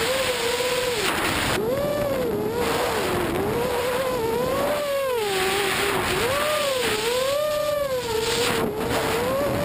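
Racing quadcopter's brushless motors and propellers whining, recorded from the drone's onboard camera over a rush of wind. The pitch swings up and down about once a second as the throttle changes through the turns.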